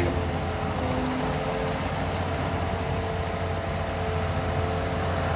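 Backhoe's engine running steadily while digging, a constant drone with a low hum and a few held tones.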